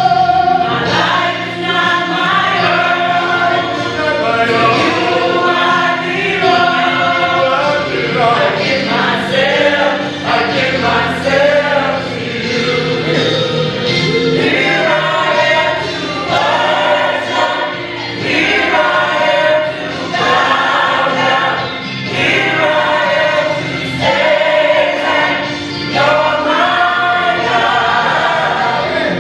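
Gospel choir singing with instrumental accompaniment, in held phrases that rise and fall.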